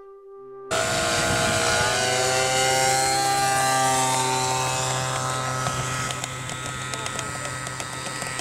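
Electric motor and propeller of a 1/5-scale RC Fokker D.XXI model plane, a Skyshark 300 Lightning motor, running as the plane taxis on grass. It is a steady whine over a propeller hum, cutting in suddenly about a second in, its pitch easing down a little over the next few seconds.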